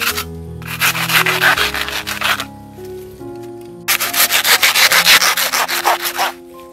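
Hand saw cutting through the base of a fresh bamboo shoot in quick back-and-forth strokes, in two spells with a short pause near the middle. Background music plays underneath.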